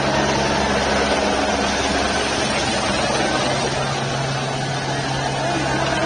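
Helicopter running overhead, a steady low drone under a dense wash of outdoor noise.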